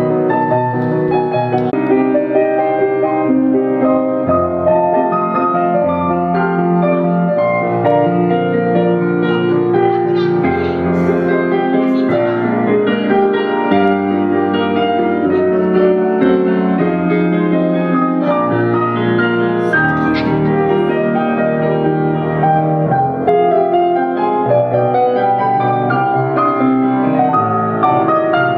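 Piano music playing without a break, as accompaniment to a ballet class.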